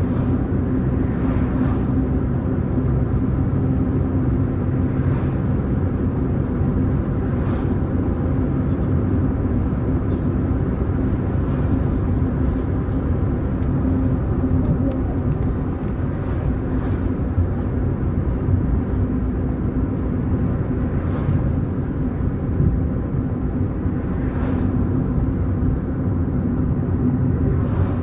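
A car being driven along a road: a steady engine hum with road noise and no change in speed, plus a few faint brief knocks every few seconds.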